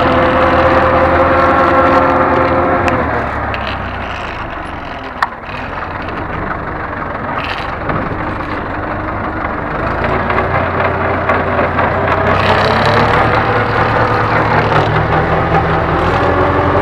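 Ursus tractor's diesel engine working under load, pulling a plough, heard from inside the cab. About three seconds in the engine note falls and fades, a single sharp click comes a couple of seconds later, then the revs climb back up and the engine holds a steady note.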